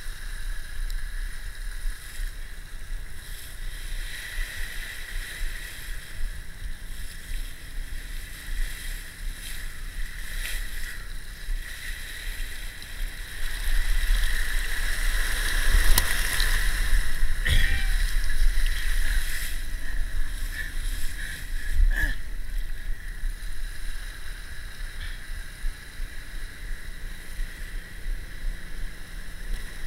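Water and wind rushing past a helmet camera on an inflatable tube towed behind a boat, a steady noisy rush with low rumble. It grows louder and splashier from about 13 to 20 seconds in as the tube crashes through the boat's wake, with a few sharp slaps of spray.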